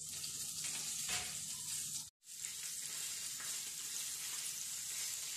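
Hot cooking oil sizzling with a steady frying hiss. The sound cuts out completely for a moment about two seconds in.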